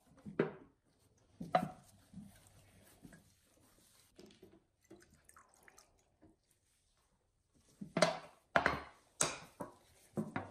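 Metal solvent cans and small glass dishes being handled on a bench mat: scattered light knocks and clinks, a faint trickle of solvent poured from a small can into a glass dish, then a quick run of sharper knocks near the end as a can is picked up and set down.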